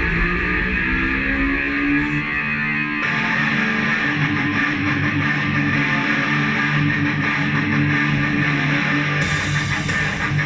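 Background music led by guitars with bass, loud and steady.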